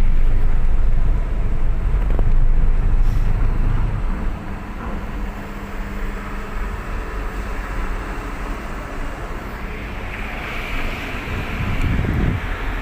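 Vehicle engines running as cars and trucks drive off a ferry, with wind buffeting the microphone. The rumble is loudest for the first four seconds, drops, then swells again near the end as another vehicle passes.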